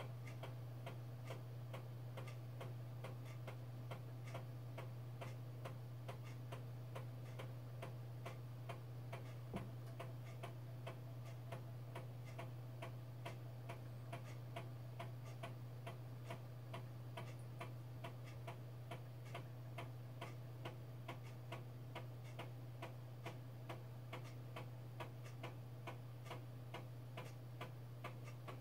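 Amiga floppy drive formatting a disk track by track: the read/write head steps with a regular ticking, roughly two to three clicks a second, over a steady low hum. One slightly louder knock comes about ten seconds in.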